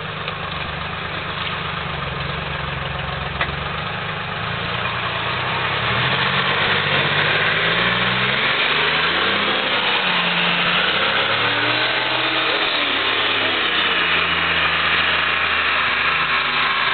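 M561 Gama Goat's Detroit Diesel 3-53 two-stroke three-cylinder diesel engine working under load as the vehicle drives through a muddy pond. It gets louder about six seconds in, and its pitch rises and falls repeatedly from about eight seconds in as the driver works the throttle.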